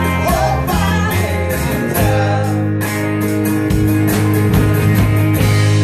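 Live country-rock band playing the instrumental close of a song: electric and acoustic guitars over a steady beat. About two seconds in they settle onto a long held chord as the song ends.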